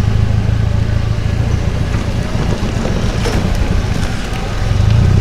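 Tube-frame trial 4x4 buggy's engine running steadily at low revs as it crawls up a steep dirt bank, swelling a little near the end.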